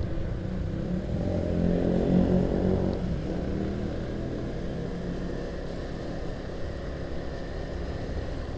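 Motor scooter engine and road noise from the rider's seat, swelling as the scooter accelerates about a second or two in, then running steadily at a lower level.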